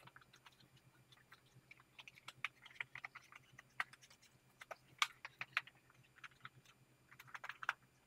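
A tubeless bicycle tire being worked onto its rim by hand and with a tire lever: faint, irregular clicks, creaks and snaps of the rubber bead rubbing and slipping over the rim edge.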